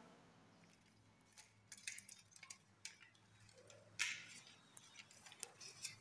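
Faint scattered clicks and ticks of wires and a small screwdriver being handled against a modular switch board's plastic switch modules, with a brief scrape about four seconds in.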